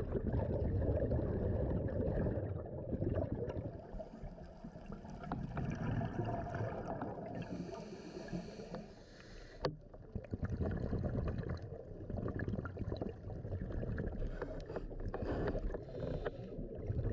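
Muffled underwater noise heard through a dive camera's housing: surging water with scattered clicks, and a brighter rushing hiss for a couple of seconds about halfway through.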